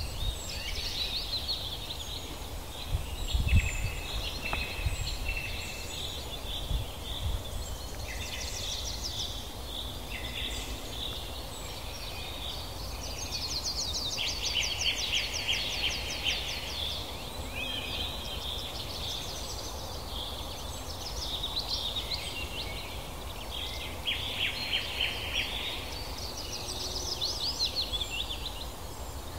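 Several birds singing and trilling continuously over a steady background hiss, with a low rumble that is loudest about three and a half seconds in.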